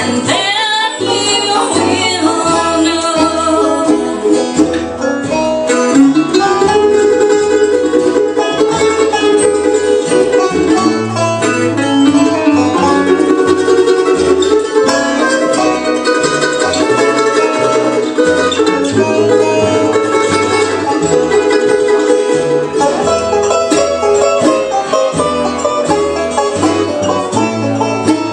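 Bluegrass band playing banjo, acoustic guitar and mandolin together, with quick picked notes running throughout.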